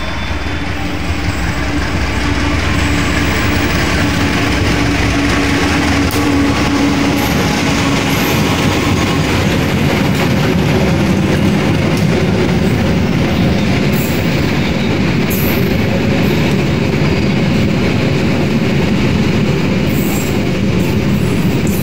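Diesel-hauled passenger train passing close by: a steady engine hum for the first several seconds as the locomotive goes by, then the continuous rumble and wheel clatter of the coaches rolling past, with a few short high wheel squeals in the second half.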